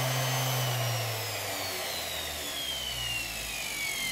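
Parkside PDFW 120 A2 bench grinder's motor driving the flexible shaft, its whine falling steadily in pitch as it slows down.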